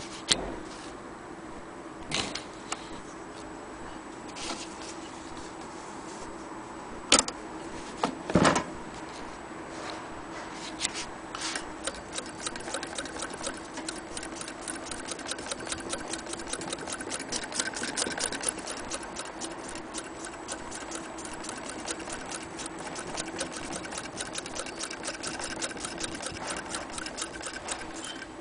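Antique Willcox & Gibbs chain-stitch sewing machine turned by hand at its handwheel. In the first ten seconds there are a few separate clicks and knocks as it is handled. From about twelve seconds in, it sews with a fast, even clatter of ticks.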